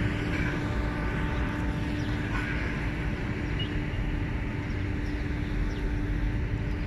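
Steady drone of a distant engine, its hum fading near the end, over low wind rumble on the microphone.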